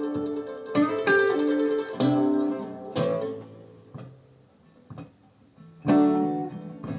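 Acoustic blues guitar instrumental, strummed chords and picked notes that ring and fade, thinning out in the middle before another chord near the end, played back from a recording through hi-fi loudspeakers.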